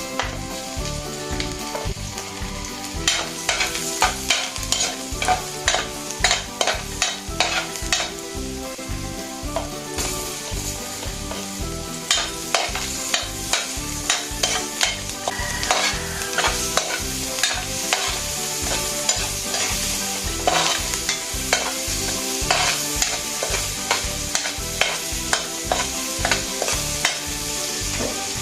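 A utensil stirring and scraping food that is frying in butter in a pan: a steady sizzle, with frequent irregular clicks and knocks of the utensil against the pan.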